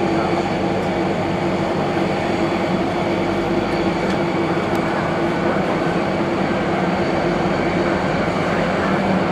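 Boeing 767-300ER jet engines on final approach at low landing thrust: a steady rush of jet noise with a faint high whine.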